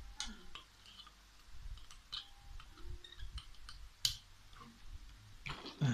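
Scattered light metallic clicks and taps of a hand tool working at a carburetor body during disassembly, with a sharper click about four seconds in and a louder knock near the end.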